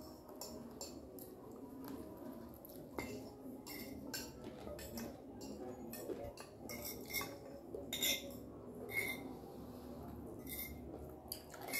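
Metal forks scraping and clinking against dinner plates, one of them a glass dish, in an irregular run of short clicks; a few clinks ring briefly, the loudest a little past halfway.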